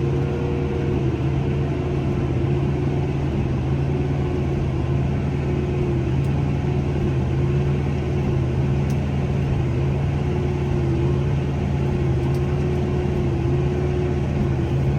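Massey Ferguson 5S.145 tractor running steadily under load while driving a large square baler through straw, heard inside the cab: an even low drone with a faint constant whine above it.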